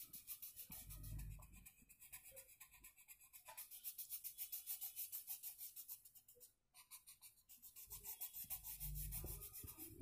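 Faint, rhythmic scratching of a coloured pencil shading on paper, about four strokes a second.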